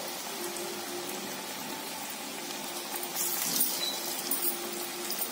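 Garelu (lentil-dough fritters) deep-frying in hot oil in a steel kadai, the oil bubbling and sizzling steadily, with louder crackling about three seconds in.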